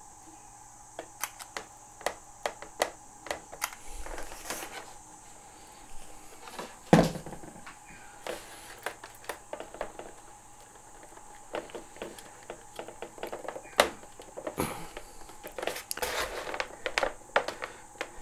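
Scattered small clicks and taps of hands handling the plastic and foam parts and wiring of a foam RC model plane, with one louder knock about seven seconds in, over a faint steady hum.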